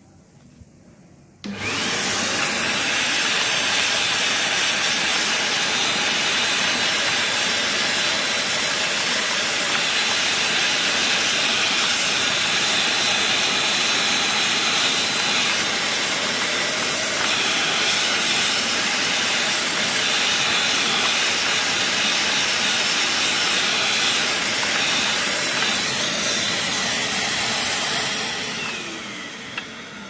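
An 800-watt Eureka Forbes handheld vacuum cleaner switched on about a second and a half in, running steadily with loud airflow noise and a faint high whine as its brush nozzle sucks dust from a keyboard. Near the end it is switched off and winds down.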